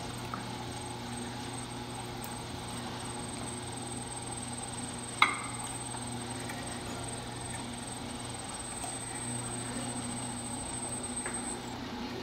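Electric potter's wheels running with a steady motor hum and a faint high whine that stops shortly before the end. A single sharp clink rings out about five seconds in.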